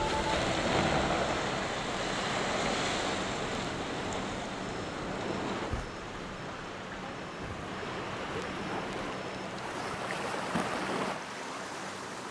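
Water churning and splashing as a car plows through a flooded pond and settles partly submerged, the wash loudest at first and slowly dying down.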